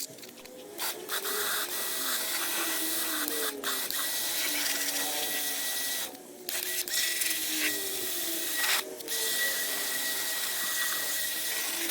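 Pressure washer pre-rinsing a car's wheel arch: a steady hiss of water spray over the whine of the washer's motor, cutting out briefly three times as the trigger is let go.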